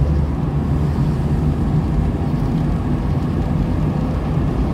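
Steady low engine and road drone inside a Honda Civic's cabin while cruising on the highway, with no revving.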